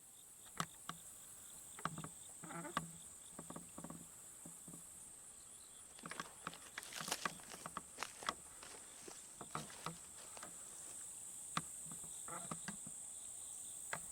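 Field insects, crickets or similar, keeping up a steady high-pitched drone, with scattered faint clicks and taps over it.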